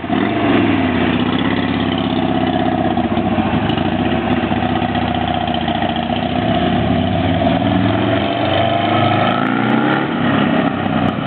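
Buell Lightning's air-cooled V-twin running through a new racing exhaust, idling steadily. The engine speed rises and falls about a second in, and climbs again near the end.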